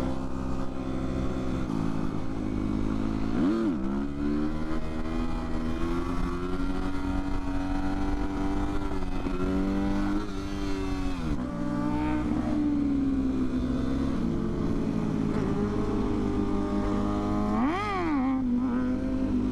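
Motorcycle engine running at a steady pitch, revved in quick rises and falls about three times: a few seconds in, around the middle, and near the end.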